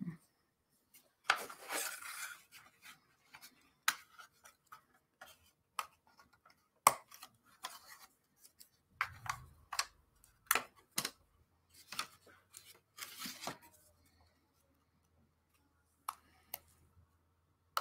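Thin laser-cut wooden puzzle pieces being pressed out of their sheet and handled: scattered sharp clicks and snaps of wood, with short bursts of wood rubbing and scraping against wood.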